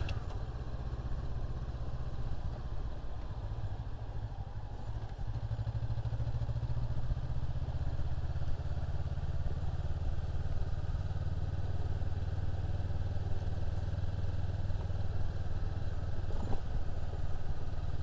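Honda CB500X's parallel-twin engine running steadily as the motorcycle is ridden along a dirt road, getting a little louder about five seconds in.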